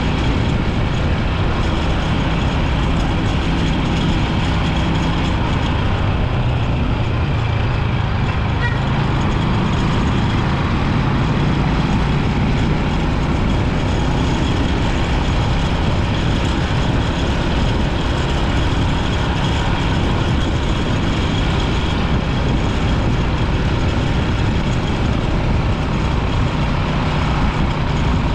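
Rusi 250 motorbike running steadily at road speed, its engine hum mixed with a constant rush of wind on the microphone.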